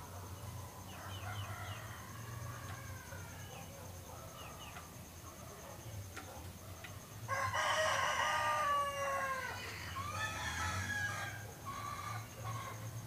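Rooster crowing: a long crow about seven seconds in, followed closely by a shorter one. Fainter calls come earlier, over a steady low hum.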